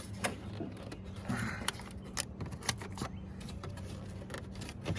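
Irregular light metallic clicks and clinks of a hand tool working small 7 mm dashboard bolts, over a steady low hum.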